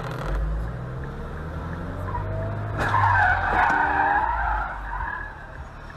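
Car tyres screeching in a skid for about two seconds, starting with a sharp knock about three seconds in, over the low running of car engines.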